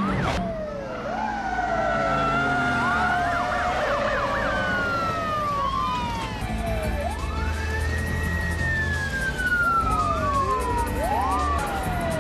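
Several police car sirens sounding at once, their wailing and yelping tones sweeping up and down and overlapping, over the low steady sound of car engines.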